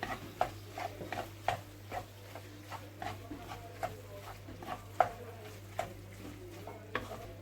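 A spoon stirring cheese into a cooked chicken and mushroom filling, with irregular light taps and scrapes against the cookware about once or twice a second.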